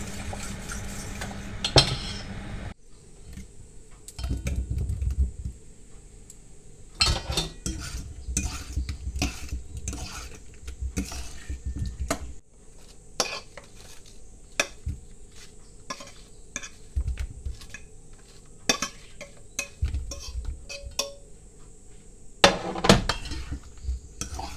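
A metal spoon clinking and scraping against a stainless steel mixing bowl while potatoes and grilled vegetables are tossed in mayonnaise. There are many irregular sharp clinks between softer scraping sounds, and the loudest clinks come near the end.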